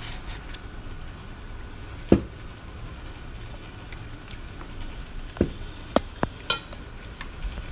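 Scattered clinks and knocks of a plate and cutlery: one loud knock about two seconds in, then a quicker run of sharper clicks near the end.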